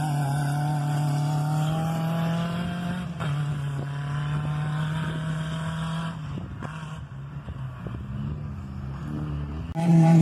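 Jeep engines running hard at steady high revs as two jeeps race away down dirt tracks, slowly fading with distance. A louder engine cuts in suddenly at the very end.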